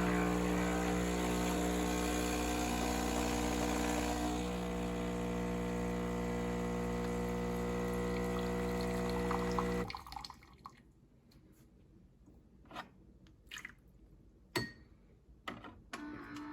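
Philips super-automatic espresso machine dispensing: a steady buzzing hum with a hiss of liquid for about ten seconds, then it stops suddenly, followed by a few drips and clicks.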